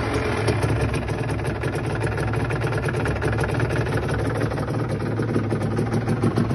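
Aprilia RS 125 two-stroke single-cylinder engine idling steadily after a blip of the throttle, with a fast, even ticking over the running. This is the engine noise its owner presents as a problem.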